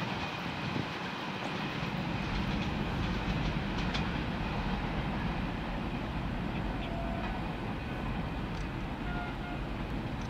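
Indian Railways freight train of covered wagons running along the track and moving away, its wheels on the rails making a steady rumble.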